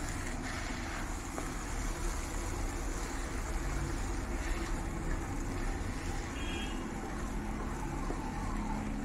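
Wooden spatula stirring thick egg and prawn curry in a non-stick pan, over a steady rushing noise from the stove or kitchen.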